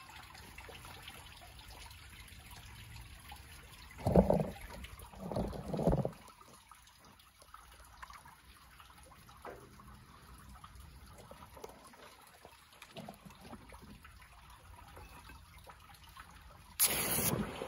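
A freshly cast aluminium piece is quenched in a bucket of water, bubbling and fizzing. Two louder surges come about four and five and a half seconds in, then a fainter crackling fizz, and a short loud noise near the end.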